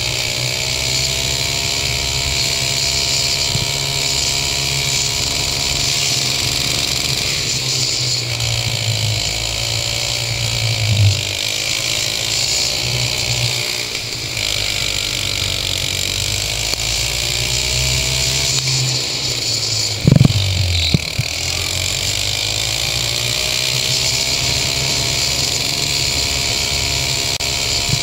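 Go-kart engine running hard on track, its pitch dropping and climbing again several times as the throttle lifts for corners and opens on the exits. A sharp knock about eleven seconds in, and a few loud thumps about twenty seconds in.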